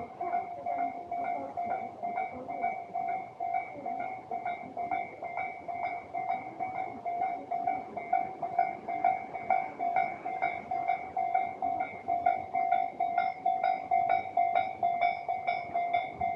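Japanese railway level-crossing warning bell ringing: a steady, evenly repeated two-tone 'kan-kan' at about two to three strokes a second. It signals that a train is approaching the crossing.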